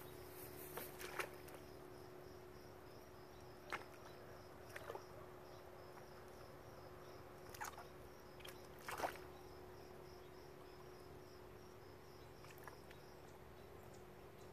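Faint outdoor quiet with an insect, like a cricket, chirping in a steady even pulse, and a handful of brief sharp sounds scattered through, the loudest about nine seconds in.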